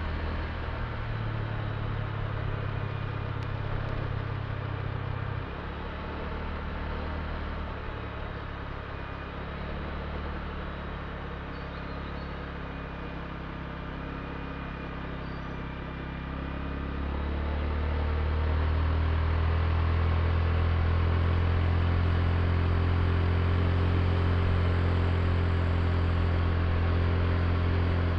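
Honda Click i scooter's small single-cylinder engine running steadily while riding, with a steady hiss over it. It grows louder about two-thirds of the way through and holds there.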